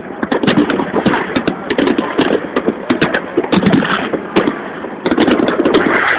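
Aerial firework shells bursting: a dense, irregular run of sharp bangs and crackles, several a second and often overlapping.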